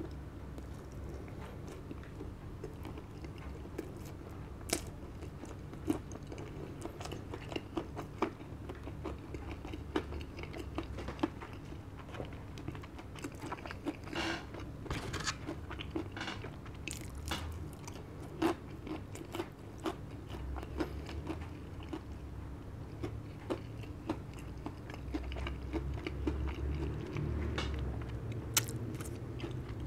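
Close-up chewing and crunching of crispy fried chicken breading, with irregular sharp crunches throughout.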